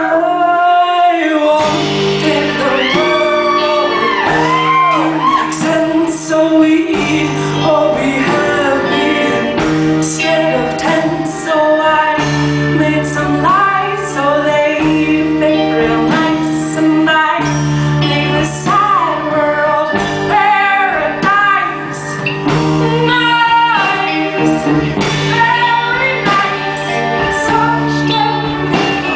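A live band playing a song with a woman singing lead, her voice wavering with vibrato and sliding between notes, over electric guitar and drums with a steady beat.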